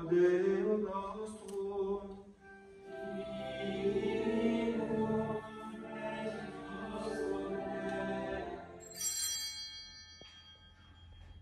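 A choir sings the Mass in long held notes, pausing briefly about two seconds in and then resuming in fuller chords. Near the end the singing fades and a brief high ringing sound comes in.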